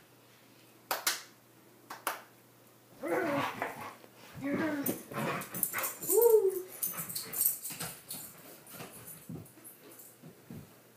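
A dog whining in several short calls that slide up and down in pitch, about three seconds in, again near five and near six seconds, after a couple of sharp knocks.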